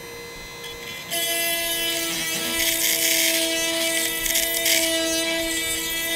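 Oregon Sure Sharp 12V mini chainsaw-chain grinder running with a steady whine from its motor, its 5/32-inch cylindrical stone grinding a 91PX saw chain cutter with a hiss that rises and falls. The whine starts about a second in, and the grinding hiss follows.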